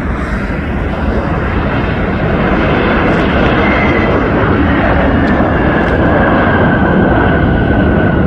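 Alaska Airlines Boeing 737's jet engines at takeoff thrust on its takeoff roll: a loud, steady rush that grows slowly louder, with a high whine coming in about three seconds in and falling gently in pitch as the jet goes past.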